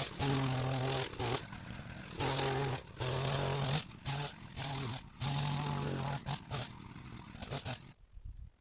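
Power hedge trimmer run in short bursts of about a second each with brief pauses between, cutting back an overgrown hedge; it stops about eight seconds in.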